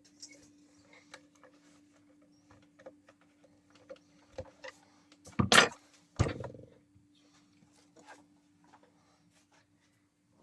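Small clicks and handling noises of plastic and metal parts being fitted as a hand mixer is cleaned and reassembled, with two louder clattering knocks a little past halfway. A faint steady hum runs underneath.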